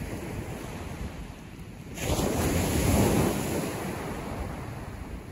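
Waves breaking on the shore: a wave comes in about two seconds in, swells and then slowly washes back, with wind buffeting the microphone throughout.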